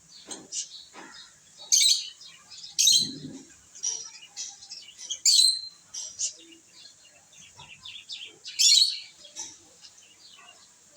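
Pet lovebirds chirping: four loud, shrill, short calls spread through the stretch, with softer chirps and small clicking sounds between them.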